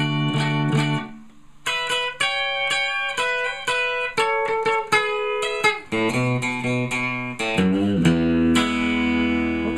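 Custom Telecaster-style electric guitar with a one-piece mahogany body and Fender '62 reissue pickups, played with a pick. A chord rings, there is a short break about a second in, then single notes are picked one after another, then fuller chords ring through the end.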